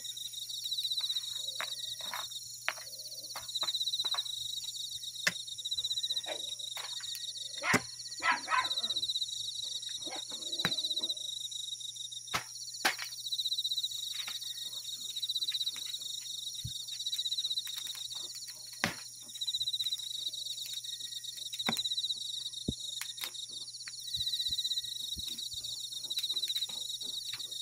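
Crickets trilling steadily in repeated pulsing phrases, with scattered sharp clicks and knocks and a dog barking a few times.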